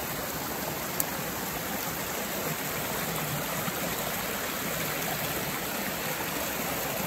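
Fast-running river rushing and splashing over rocks in white water, a steady rush.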